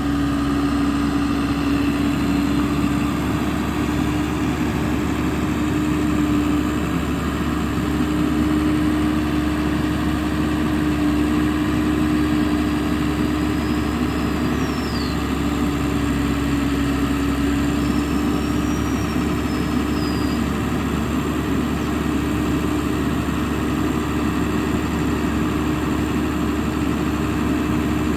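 A vehicle engine running steadily with a constant droning hum and rumble, unchanging throughout. Two faint high whistles sound briefly in the middle.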